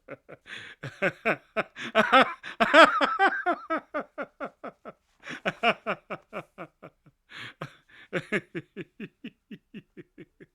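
An adult man laughing in repeated runs of quick rhythmic "ha" pulses, about four to five a second, with drawn-in breaths between the runs; the laugh peaks louder and higher about two to three seconds in, then tails off into softer pulses near the end.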